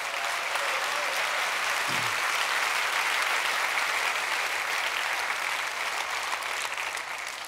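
Large audience applauding in a steady round that eases off slightly near the end.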